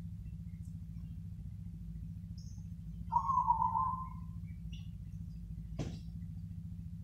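Zebra dove (perkutut) cooing: one broken, stuttering coo phrase of about a second, in the 'crossing' song rhythm, over a steady low hum. A single sharp click comes near the end, with a few faint high chirps.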